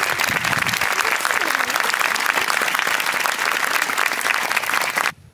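Audience applauding: dense, steady clapping from a large crowd, with a few voices mixed in, that cuts off suddenly near the end.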